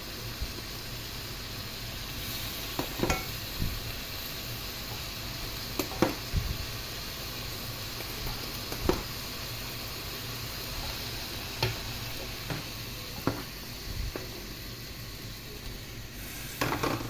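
Broccoli and cauliflower sizzling in a pot of hot oil and seasoning, with a steady hiss. A spoon stirs and knocks against the pot every few seconds.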